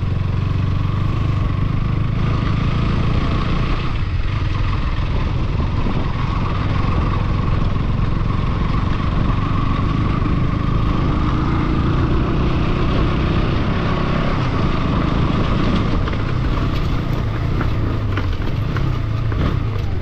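A vehicle running steadily, with a heavy low engine rumble and a rushing noise over it.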